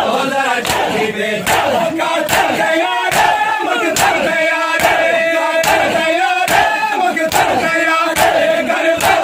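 A crowd of men chanting together in unison while beating their chests in matam (Shia mourning chest-beating), one sharp slap in time a little more than once a second.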